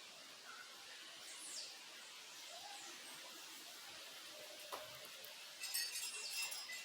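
Birds give a few faint, short chirps over a steady background hiss of the stream running behind the yard. About five and a half seconds in, a wind chime starts tinkling and is the loudest sound.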